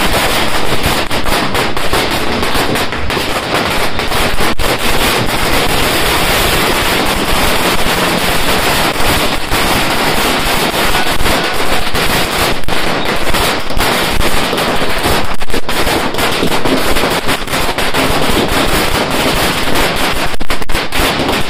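Firecrackers going off in a loud, rapid, unbroken crackle of countless small bangs, like a long firecracker string burning through.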